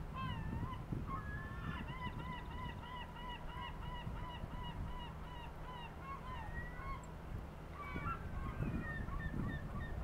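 Gull calling: a long run of short, repeated yelping notes, several a second, with a few scattered calls before and after. A steady low rumble runs underneath.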